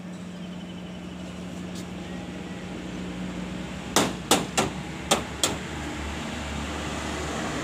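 Five sharp knocks in quick succession about four seconds in, spread over a second and a half, over a steady low hum.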